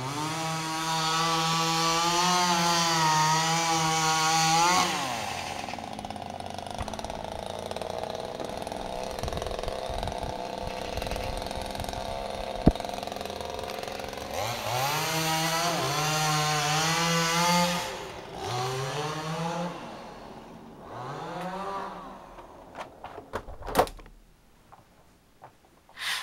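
Small two-stroke engine held at full throttle for about five seconds, dropping back to a lower running speed, then revved up again, followed by a few shorter revs that rise and fall before it fades. A single sharp click about halfway through and a few clicks near the end.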